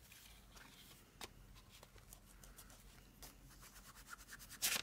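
Ink being dabbed and rubbed onto a paper journal page: a run of light, quick taps and scuffs, with one louder knock near the end.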